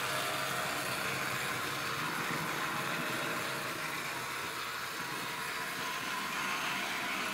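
Model tram running on 00-scale track: a steady whir from its small electric motor unit and wheels rolling on the rails.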